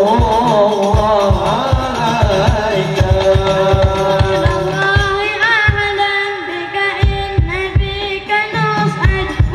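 A group of men singing a devotional sholawat together into microphones, accompanied by hadrah frame drums beating a steady rhythm.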